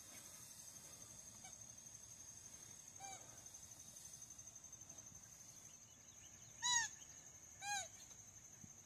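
Squeaky dog toy squeaked as the dog bites it inside the bucket: one faint squeak about three seconds in, then two louder squeaks about a second apart near the end.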